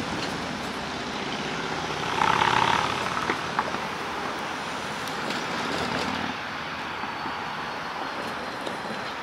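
EMD GP39-2 diesel locomotive and its train moving slowly along the track, a steady rumbling run that swells briefly about two seconds in, with a few sharp clicks.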